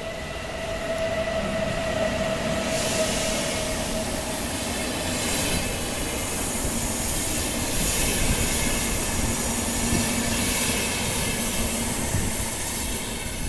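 VR Sr2 electric locomotive and double-deck passenger coaches passing close by, with the steady noise of wheels running on the rails. A thin steady tone in the first few seconds gives way to a louder rushing as the coaches go by.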